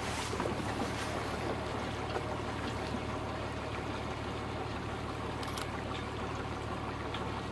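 Engine of an old wooden fishing boat running steadily at cruising speed, a low even hum, with water rushing and trickling along the hull.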